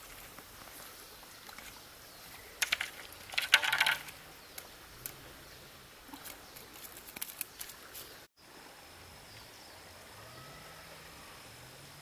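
A short flurry of crunching and clattering on a pebbly riverbank about three to four seconds in, with a few small clicks after it, over a steady outdoor hiss.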